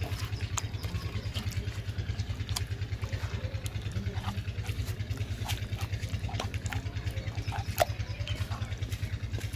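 An engine running steadily in the background with a fast, even low throb. Over it, hands squelch thick masala paste onto fish pieces in a bowl, giving soft wet clicks, with one sharper click near the end.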